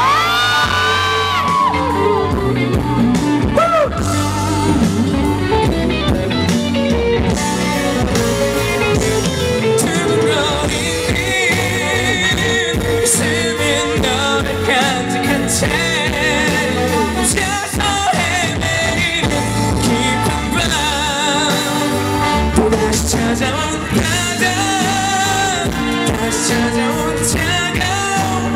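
Live pop-rock band music with singing over it, loud and continuous; a voice or bent guitar note glides up near the start.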